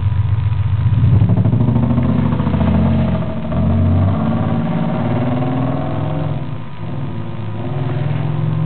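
Car engine revving and running under load, heard from inside the car's cabin, its pitch rising and falling.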